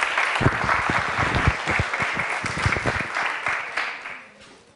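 A small audience applauding, dying away near the end.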